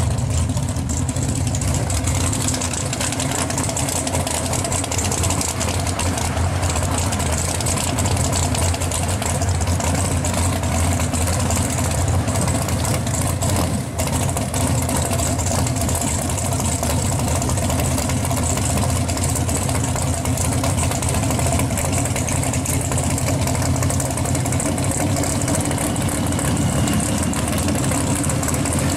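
Engine of a pro-street 1969 Chevrolet Chevelle idling with a steady, deep rumble as the car creeps along at low speed.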